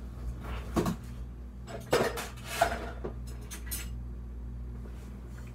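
Pots, pans and metal utensils clattering as cookware is rummaged out from a low kitchen cabinet: a handful of separate knocks and clanks over a few seconds, over a steady low hum.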